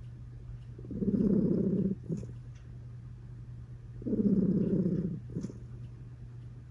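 Cat purr-snoring: two purring, snore-like bouts about a second long, roughly three seconds apart, each followed by a brief catch, in a slow breathing rhythm.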